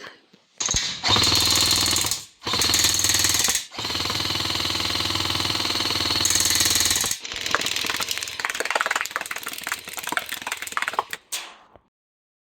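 Airsoft replica M1919 .30 cal machine gun firing full-auto bursts: several bursts of very rapid shots with short pauses between, the longest lasting about three and a half seconds, then a more uneven stretch of fire that stops near the end.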